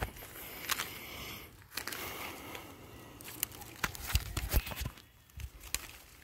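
Hand pruning shears snipping the tips off young mango shoots: several sharp clicks spread out, amid rustling of the leaves. A few dull thumps come around four to five seconds in.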